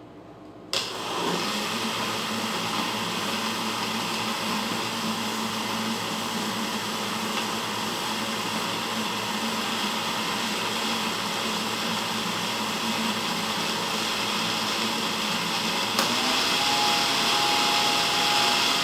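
Countertop electric blender switched on with a click about a second in, then running steadily as it blends a thin pancake batter; near the end its pitch rises and it gets slightly louder.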